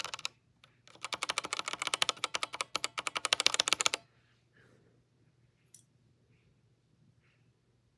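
Keys of a Womier WK61 mechanical keyboard with red linear switches being pressed rapidly: a fast run of key clacks, about ten a second, for about three seconds, then a few faint ticks.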